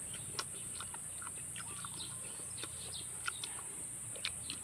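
Steady high-pitched insect drone with scattered short wet clicks and smacks of close-up chewing.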